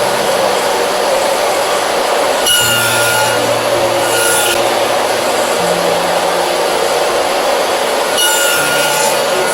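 A woodworking power tool running steadily and cutting wood, with a few brief louder passes about two and a half, four and eight and a half seconds in.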